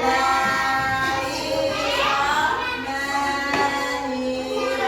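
A voice singing a children's song in long, held notes that glide from one pitch to the next.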